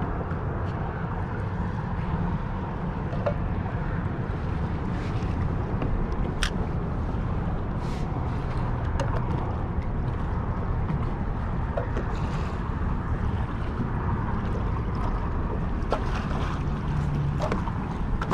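Steady wind buffeting the microphone over choppy water lapping around a kayak, with a few faint clicks and knocks scattered through.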